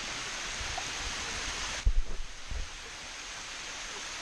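Steady rushing of a waterfall. A break in the sound about two seconds in brings a few low thumps of wind or handling on the microphone.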